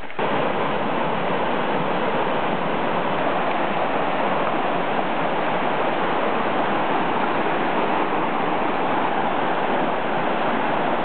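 A rocky jungle stream rushing and splashing over boulders in a steady, loud roar of water.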